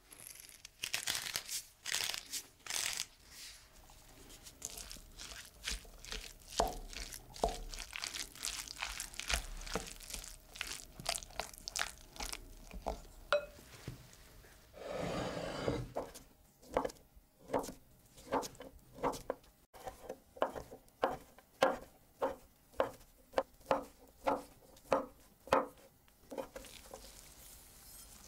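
A wooden spoon mashing and stirring chopped boiled egg with mayonnaise in a glass bowl, in irregular wet squishing and scraping strokes. After a brief rustle about halfway, a knife starts dicing luncheon meat on a wooden board, chopping in a steady rhythm of about two strokes a second.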